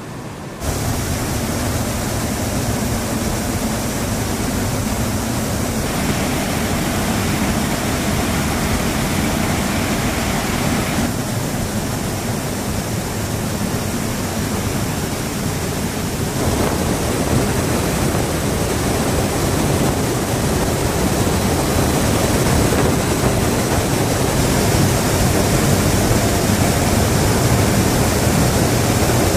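Steady, loud rushing noise of engines and airflow inside a military transport aircraft's cargo hold in flight. Its tone shifts at a few points.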